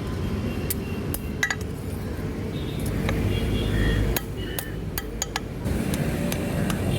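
Scattered metal clinks and light hammer taps on steel, some leaving a brief ring, at an irregular pace over a steady low rumble.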